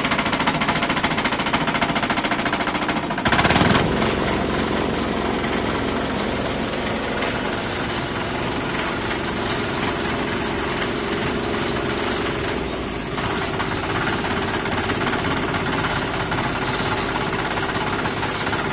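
Diesel-powered concrete mixer running, its engine giving a rapid knocking beat. About three seconds in there is a brief louder burst, after which the running sound is steadier, with a low hum.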